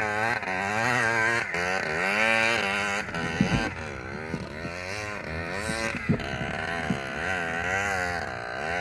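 A small single-cylinder four-stroke trail motorcycle engine revving up and down repeatedly as the throttle is worked, with a few sharp knocks in the second half.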